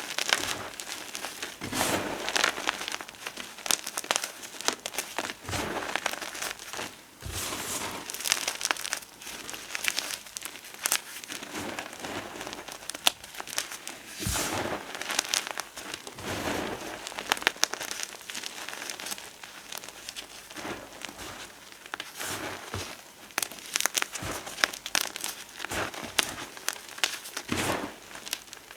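Gym chalk and potato flour being crushed and crumbled: a dense, continuous crackle of small crunches, with louder crunches every second or two.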